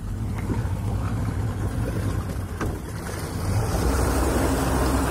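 Motorboat under way: a steady low engine drone mixed with wind and water noise, the drone growing louder about three and a half seconds in.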